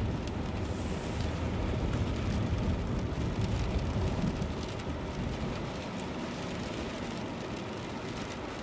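Inside a car driving on a wet road in the rain: a steady rumble of tyres and engine with a hiss of water and rain. The rumble eases off somewhat about halfway through.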